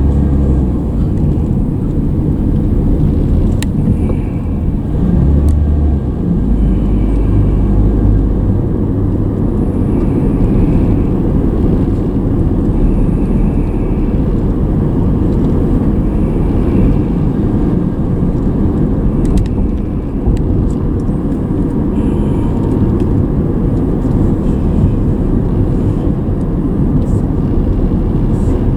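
Car driving along, heard from inside: a steady low rumble of road and engine noise.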